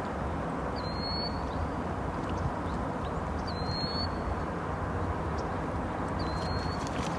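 Steady outdoor background noise, with a faint thin high tone heard three times.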